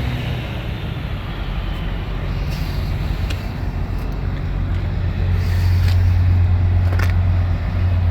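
Kobelco SK300 excavator's diesel engine idling steadily. About five seconds in the hum becomes louder and lower, and a few light clicks sound over it.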